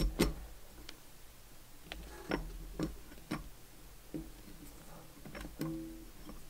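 Light metallic clicks and ticks, irregular, about one every half second, of a hex key turning a small steel grub screw into a hydraulic ram cylinder; one click near the end rings briefly.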